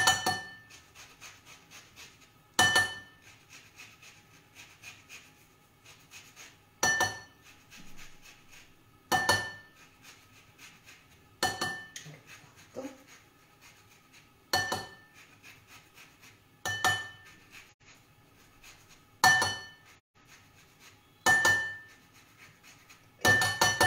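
A metal zester/grater knocking against the rim of a bowl as orange zest is grated into it: about ten sharp, ringing clinks, roughly one every two seconds.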